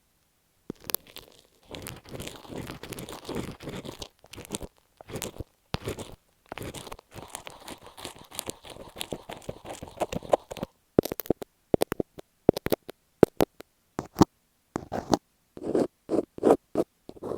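Masking tape stuck over an earphone microphone being scratched and rubbed, heard very close as dense crackling. In the second half it gives way to a run of sharp taps.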